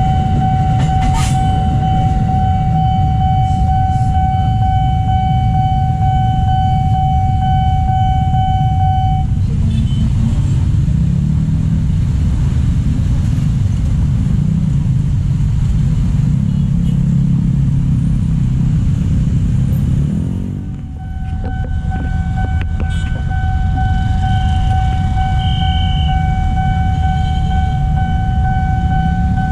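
Level-crossing warning alarm sounding a steady high tone over the low rumble of traffic and the passing electric commuter train; it stops about nine seconds in as the barrier lifts. Motorcycle engines then rev and pull away across the crossing. Near the end the same steady alarm tone sounds again.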